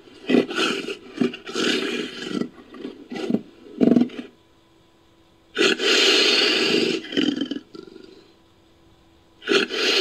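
Big-cat call sound effect built from cheetah and leopard recordings: a run of short, rough calls over the first four seconds, then a longer call lasting about two seconds, and another starting near the end.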